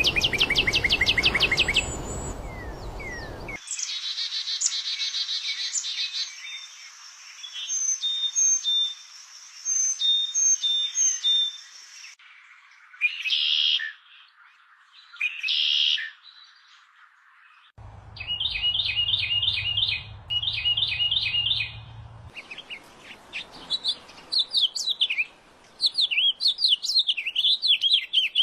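A series of different birds singing and calling, one recording after another, with sudden cuts between them. The calls run from rapid repeated chirps and short whistled notes to a fast, jumbled warbling song near the end.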